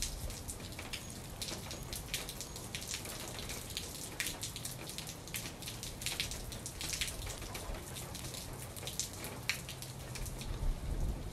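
Rain falling, with many separate drops ticking sharply and unevenly close to the microphone, in a phone field recording.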